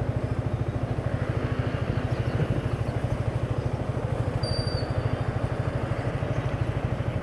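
Motorcycle engine running at a steady speed, with a rapid, even low pulse throughout.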